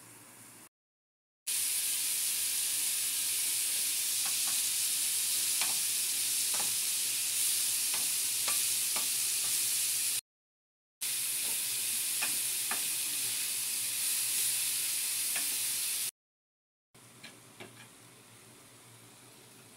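Sliced chicken and bell peppers sizzling in a hot frying pan with a steady hiss, a wooden spatula ticking and scraping against the pan as they are stirred. The sound comes in two long stretches separated by brief silent cuts; near the end it is much quieter, with a few light taps as noodles are stirred into the sauce.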